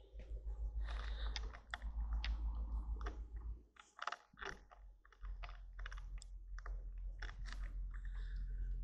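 Handling noise from a handheld camera being moved about: irregular light clicks and rustles over a low rumble, which drops away for a moment near the middle.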